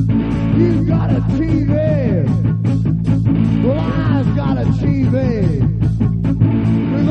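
Rock music: an instrumental passage with electric guitar over bass and drums, the lead guitar playing arching notes that bend up and fall back.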